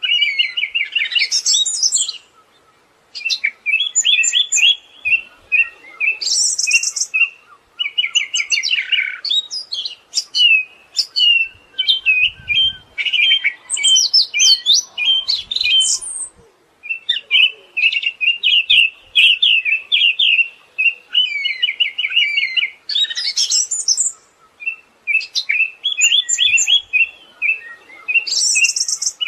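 Siberian thrush singing a long, varied song of fast rattling trills and quick chirps with sharp, very high notes mixed in, broken by a few short pauses.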